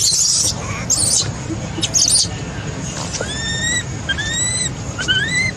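Baby macaque crying: a few short harsh high squeals in the first two seconds, then a run of high, clear calls about a second apart, each rising in pitch and then levelling off. These are its distress calls, crying out for help.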